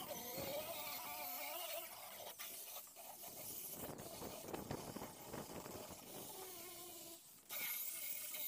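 Handheld electric disc sander on a fibreglass bucket. Its motor whine fades out in the first two seconds, then handling and scraping sounds follow. Near the end a steady hiss starts up as the disc runs on the fibreglass again.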